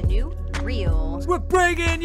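Music: a singing voice over a steady beat with deep bass, about two low thumps a second.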